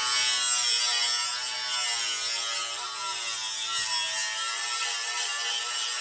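Cordless angle grinder grinding steel, a steady high whine with the hiss of the disc on metal. The pitch wavers and dips slightly about halfway through as the disc is pressed into the work.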